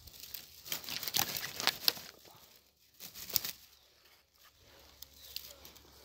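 Dry grass and pine needles rustling and crackling as a wild asparagus spear is cut off at its base with a knife. A dense run of crackles and snaps fills the first two seconds, with another short burst a little after three seconds.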